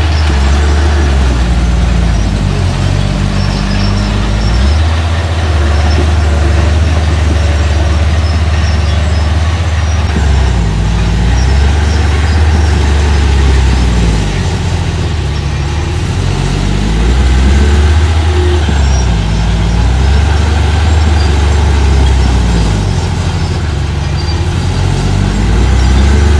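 Diesel engine of a small construction machine working under load, its revs rising and falling again and again.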